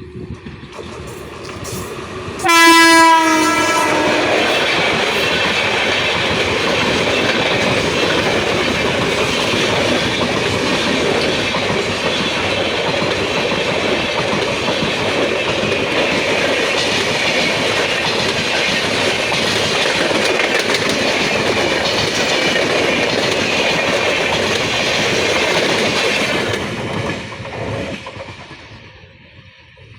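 WAP-5 electric locomotive's horn sounding one short blast, pitch dropping slightly as it passes, followed by the long steady rush and wheel clatter of an express train's coaches running through at speed, fading away near the end.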